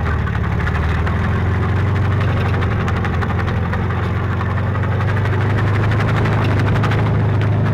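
A vehicle engine idling steadily with a low hum, settling in pitch at the start.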